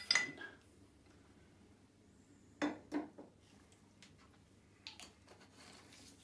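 Glass clinking with a brief ring as a glycerin bottle is lifted off the neck of a glass volumetric flask, then two dull knocks about two and a half seconds later and small clicks and rustling as the bottle is handled and capped.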